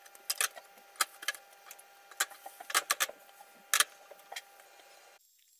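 Scattered light clicks and knocks of flatbreads and non-stick frying pans being handled on a gas hob's metal grates, over a faint steady hum that stops about five seconds in.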